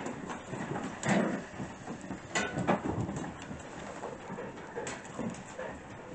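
Six-week-old puppies playing together: scuffling and light knocks, with a few short puppy sounds now and then.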